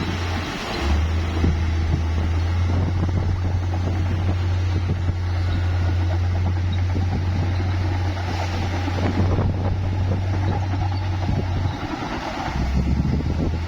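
Bulldozer's diesel engine running steadily under load, a deep continuous drone over rough mechanical noise. The drone drops away briefly about a second in and again near the end.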